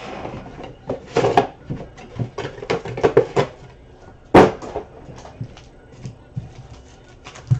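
Hands handling trading card packs and cards on a tabletop: a run of small clicks, taps and rustles, with one louder, sharper noise about four and a half seconds in.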